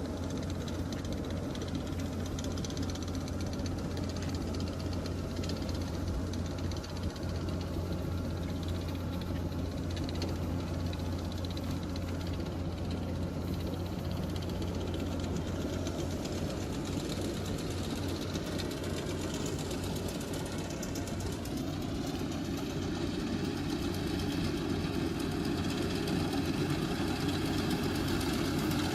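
Rice harvesting machine's engine running steadily. Its note shifts about two-thirds of the way through, and it grows slightly louder toward the end.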